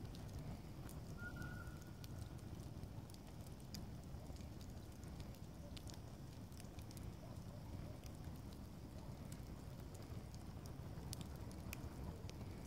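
Open wood fire burning: a steady low rush of flames with frequent scattered crackles and pops from the burning logs.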